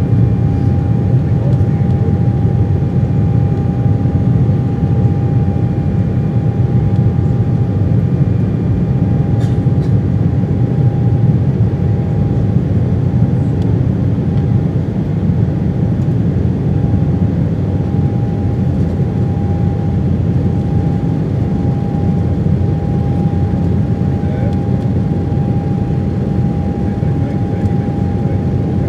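Cabin noise of an Embraer E190 climbing after takeoff, its General Electric CF34-10E turbofan engines giving a steady deep rumble with one thin steady whine on top, heard from a seat over the wing.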